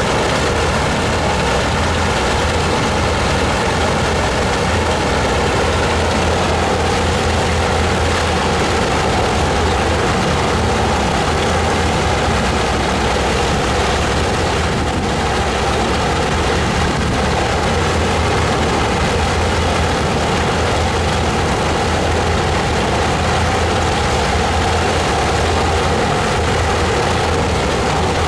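Three Pratt & Whitney R-1340 Wasp nine-cylinder radial engines of a Junkers Ju 52/3m idling steadily, propellers turning.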